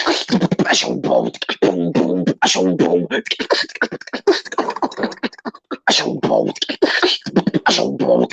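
Live beatboxing: a fast run of sharp percussive mouth clicks and snares mixed with pitched, sung or hummed vocal tones, with no breaks.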